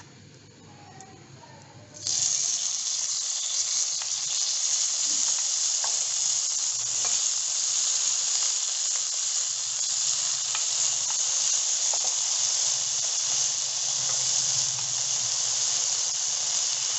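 Vegetables frying in hot olive oil and butter in a ridged grill pan: a steady sizzle with scattered pops that starts suddenly about two seconds in.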